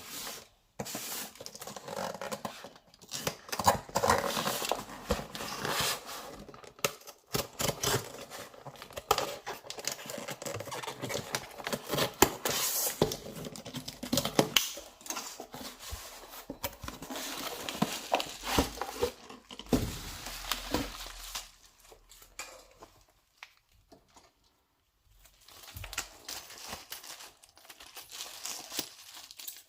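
Packaging of a boxed Blu-ray set being handled and opened: irregular crinkling, rustling and tearing, with a short lull about three-quarters of the way through before quieter handling resumes.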